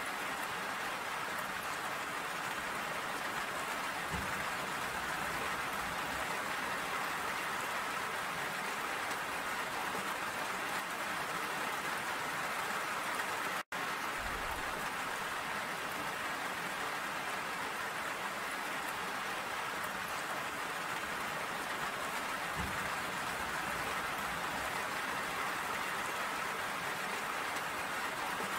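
Steady rain falling, an even hiss with no let-up. The sound cuts out for an instant about halfway through.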